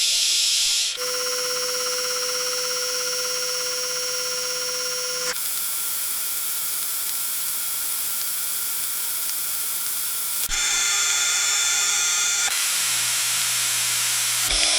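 CNC machine idling: a steady hiss under several steady whining tones. The mix changes abruptly every few seconds, and one stretch in the middle is mostly hiss alone.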